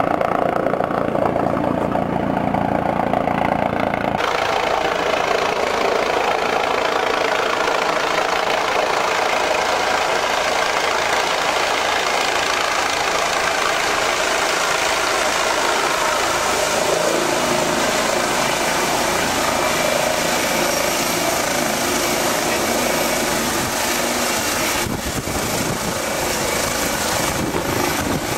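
Eurocopter EC135 helicopter flying in low: loud, steady rotor and turbine noise. The tone shifts about four seconds in.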